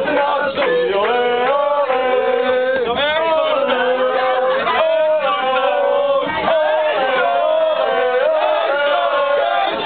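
A group of people singing and chanting together without a break, many voices at once.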